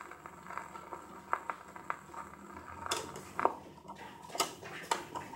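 A stylus riding a vinyl LP after the song has ended: faint surface noise with scattered clicks and pops.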